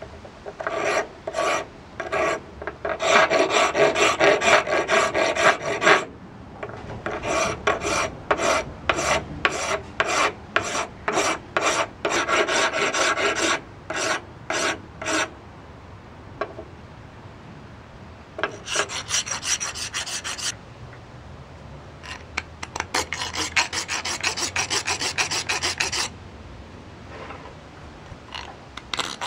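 A coarse round rasp filing a block of yellow wonderstone in runs of back-and-forth strokes, rounding out a stone pipe bowl. There are a few short pauses between the runs.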